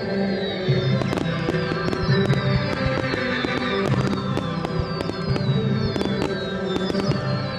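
Fireworks going off in quick succession, many sharp bangs and crackles, over music with steady held notes.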